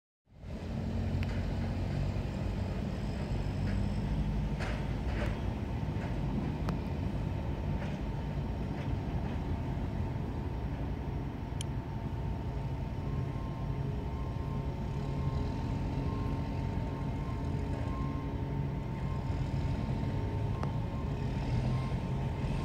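Steady low engine rumble from unseen equipment, with a faint steady whine above it. About halfway through, a faint tone starts pulsing at an even beat.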